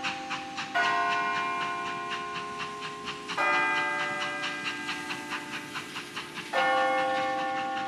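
Bells struck three times, about three seconds apart. Each strike sounds a different cluster of pitches and rings on, fading slowly, over a quick, even ticking.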